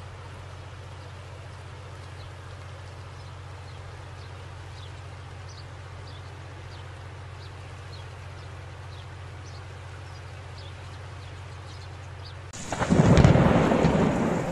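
Steady rushing of flash-flood water. About two seconds from the end a loud thunderclap breaks in and rumbles on.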